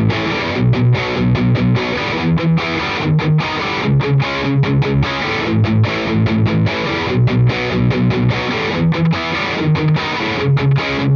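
Electric guitar played through distortion: a chugging rhythm riff of short low notes, broken by brief gaps.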